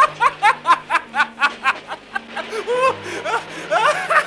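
A man laughing hard and long: a rapid, even run of pitched 'ha-ha' pulses, about four a second.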